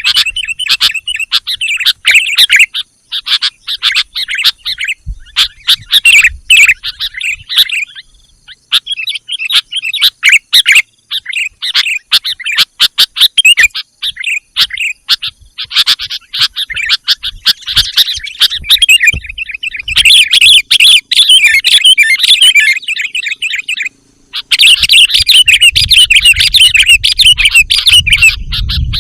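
Sooty-headed bulbul (kutilang) calling in quick, lively runs of chirps with brief pauses, the kind of calling used as a lure for wild bulbuls. A low rumble sits under the calls near the end.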